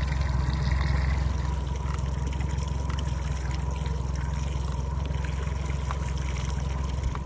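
Water splashing and gurgling along the hull of a slow-moving aluminium fishing boat, over a steady low hum and a faint steady tone.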